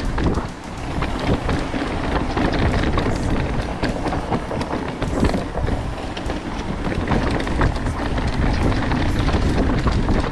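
Mountain bike descending a dirt trail: wind rushing over the microphone, tyres rolling on loose dirt, and frequent clatter and knocks from the bike over bumps.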